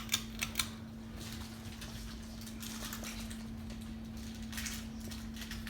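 Harbor Breeze Springfield ceiling fan running at medium speed on its wall speed control: a steady motor hum with a low rumble, with a few light clicks just at the start.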